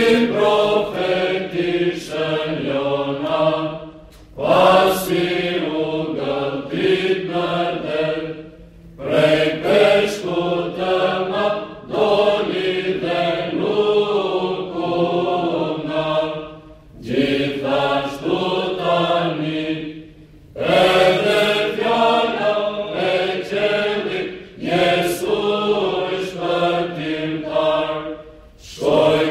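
Mixed choir singing Byzantine chant without accompaniment, in phrases of several seconds with short breaks between them, over a steady low held drone (the ison).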